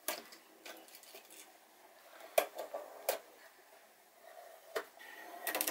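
Blue protective shipping tape being peeled off the plastic body of a new Brother NV180D sewing and embroidery machine: scattered sharp taps and ticks of fingers and tape on plastic, with a short rustling stretch near the end.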